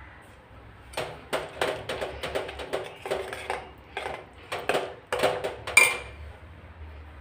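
Steel spoon stirring thick cooked sago in a metal pot, knocking and scraping against the pot in a quick run of clicks several a second, ending with a louder metallic ping about six seconds in.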